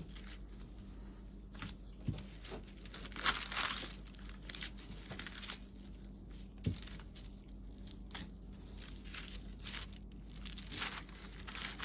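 Wax paper crinkling and rustling under salt dough being kneaded by hand on it: faint, irregular swishes with a few soft knocks, loudest about three seconds in and again near the end.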